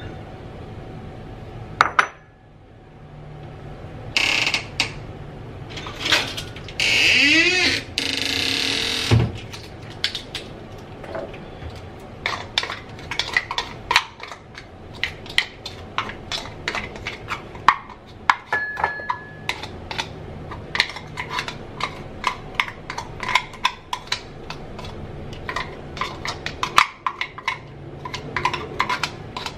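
Kitchen clatter: bowls, dishes and utensils clinking and knocking on a stainless-steel counter in many short, sharp taps, with a rushing sound rising in pitch for a couple of seconds about a quarter of the way through.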